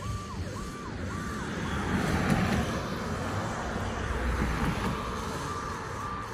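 Cars passing on the road, their tyre and engine noise swelling through the middle and easing off. Behind them a distant emergency-vehicle siren sweeps up and down in pitch, a little under twice a second, clear at the start and again near the end.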